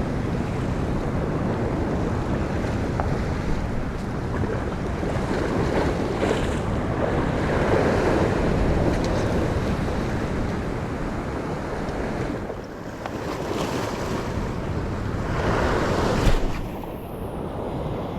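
Ocean swell surging and washing over a rock ledge, with wind buffeting the microphone. The wash builds twice, and a sharp knock sounds about sixteen seconds in.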